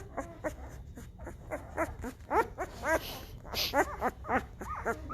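Week-old Great Bernese puppies squealing and whining in many short cries that rise and fall in pitch, most thickly around the middle; the cries of hungry newborn puppies.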